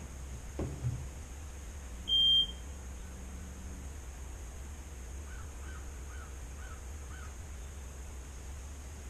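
A tractor's dashboard warning beeper sounding once, a short steady high beep about two seconds in, as the key is switched on before cranking a cold diesel. A couple of small knocks come near the start, and five faint short chirps follow midway.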